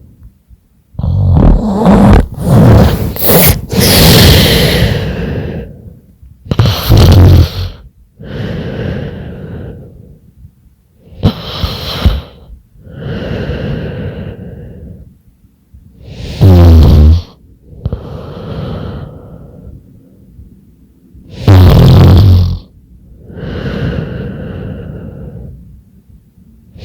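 A woman, ill and napping, snoring in her sleep: loud snores about every five seconds, each followed by a softer breath, with quiet pauses between. The first few seconds hold a cluster of uneven, broken snorts.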